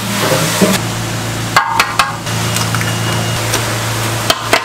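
Ingredients and a utensil handled in a large aluminium basin: a soft rustle, then a few sharp knocks with a brief metallic ring about a second and a half in and again near the end, over a steady low hum.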